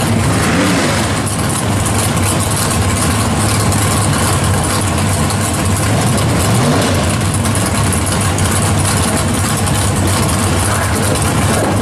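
Supercharged drag car engine idling loud and steady as the car creeps forward, with a couple of brief, slight rises in pitch.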